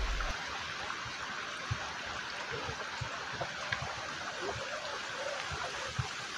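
Running water in a stream or paddy channel, a steady trickling rush, with a few soft low thumps scattered through it.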